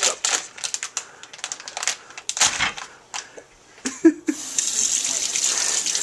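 Kitchen tap turned on about four seconds in and running steadily into the sink, after a stretch of scattered clicks and rustles of handling at the counter. A short sharp sound, the loudest moment, comes just before the water starts.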